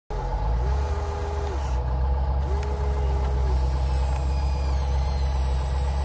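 Remote-control model excavator at work: a steady low engine-like hum runs throughout, and an electric motor whine rises, holds for about a second and drops away, twice, as the arm moves.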